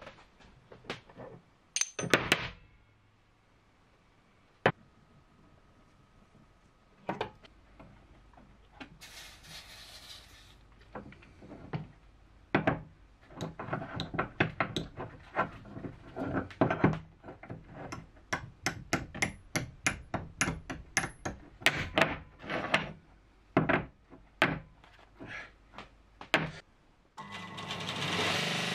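Sharp metal knocks and clinks, sparse at first and then several a second, as cut pieces of a steel block are knocked loose from a machine vise and handled. Near the end a belt grinder's motor starts running.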